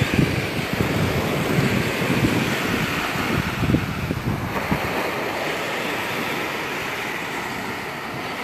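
Small Gulf of Mexico surf washing onto a sand beach, with wind buffeting the microphone in gusts for the first half before easing to a steadier wash.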